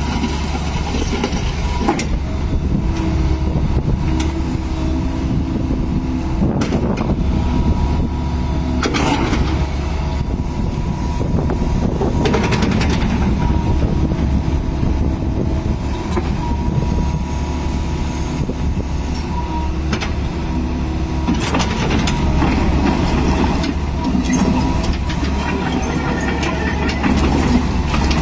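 Sumitomo SH120Z3 hydraulic excavator working hard: its diesel engine running steadily with a whine over it, while the steel tracks clank and the machine gives several sharp knocks as it lifts itself on its boom and travels.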